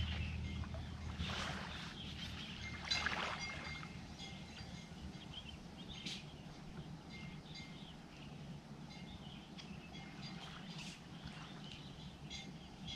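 Quiet dawn beach ambience: a low steady background with faint short bird chirps here and there. Some louder rustles in the first few seconds come as a man settles into a folding camp chair, while music fades out at the very start.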